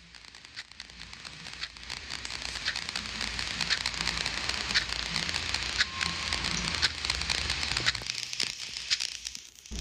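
Crackling hiss with scattered sharp clicks over a low hum, fading in over the first few seconds and dipping just before the end.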